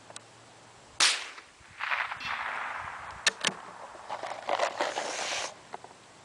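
A single shot from a Winchester Model 121 single-shot .22 LR bolt-action rifle about a second in, sharp and short. It is followed by a few seconds of rushing noise and two quick metallic clicks.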